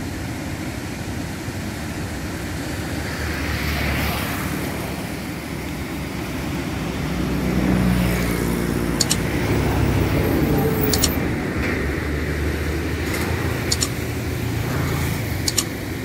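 Road traffic rumbling steadily, swelling as vehicles pass, with one engine passing close about halfway through. A few sharp clicks in the second half.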